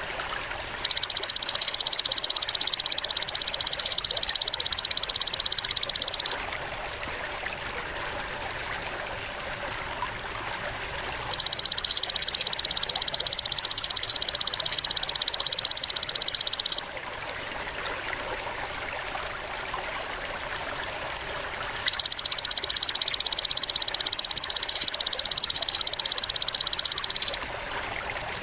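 Belalang emas (golden grasshopper) calling in a loud, high, finely pulsed buzz, three times, each lasting about five and a half seconds, over a steady trickling stream.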